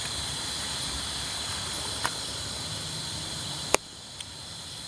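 Night insects, crickets among them, chirring steadily in a continuous high hum. A small click sounds about two seconds in, and a sharp, louder click near the end.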